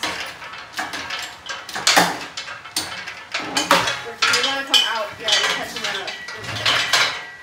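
Irregular metallic clanks and knocks as a Jeep 4.0L straight-six engine, hanging from an engine hoist on its chain, is wrestled out of the engine bay past the control arm and exhaust.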